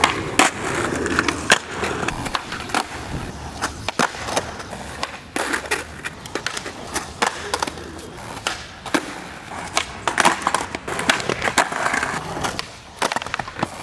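Skateboards rolling on smooth concrete, with repeated sharp clacks of tails popping and boards landing during flatground trick attempts.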